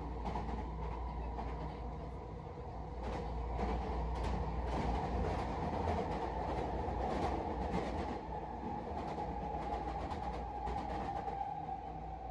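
Running noise inside a SkyTrain car at speed: a steady low rumble with a hum over it, and scattered clacks from the wheels on the track.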